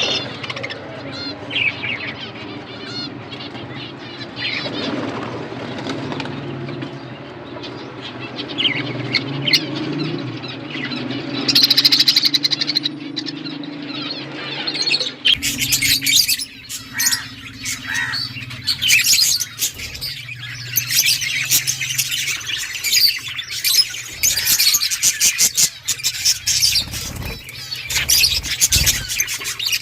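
Budgerigars chirping and squawking. About halfway through, the sound changes abruptly to a denser stretch of rapid, high chattering.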